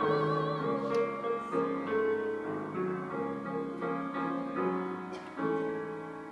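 Grand piano playing the song's closing bars alone: soft chords struck about once or twice a second, growing quieter, with a fuller chord near the end.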